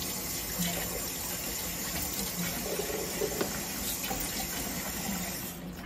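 Kitchen faucet running into a stainless steel sink as hands are rinsed under the stream; the water shuts off near the end.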